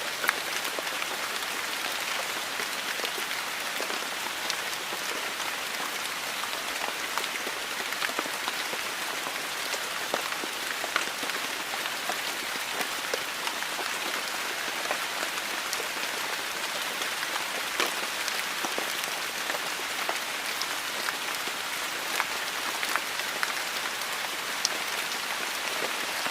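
Steady rain falling on a hard surface: a constant hiss with many distinct drops ticking sharply through it.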